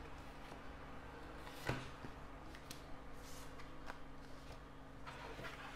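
Tarot cards being drawn from the deck and laid down on a table: faint scattered card flicks and light taps, the clearest about a second and a half in, over a low steady hum.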